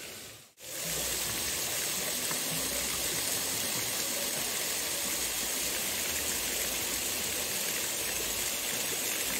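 Steady rush of water from a small stream, with a thin flow pouring from the bank into a pool, starting about half a second in.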